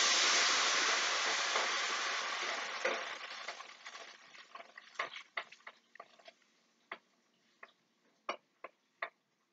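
Hot turkey stock poured into a pan of frying onion and garlic: a loud sizzling hiss that fades over about four seconds, then scattered pops and crackles that die away near the end.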